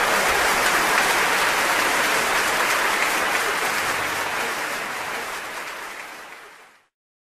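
Audience applauding, a dense even clapping that fades over the last two seconds and then cuts off abruptly into silence.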